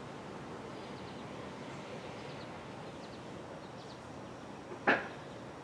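Faint steady background noise with a few faint, high bird chirps, and one short, sharp knock near the end.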